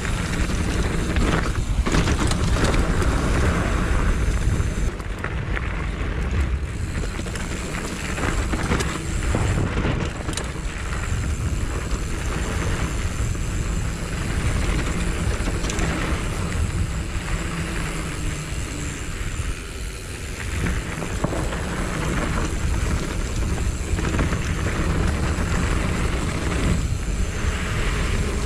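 Mountain bike ridden along a dirt trail: wind rushing over the action camera's microphone, with steady tyre rumble and scattered knocks and rattles from bumps.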